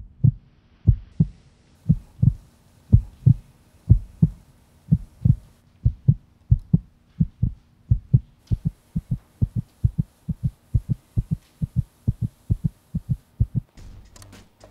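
Heartbeat sound effect: pairs of deep low thumps that start slowly and speed up steadily.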